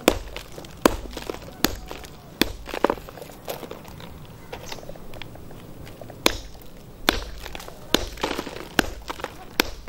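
A hand hammer pounding chunks of ant-nest stone ore into a hollow on a large boulder, crushing the gold-bearing rock: sharp stone-on-stone strikes about one a second, fainter for a couple of seconds mid-way, with grit crunching between blows.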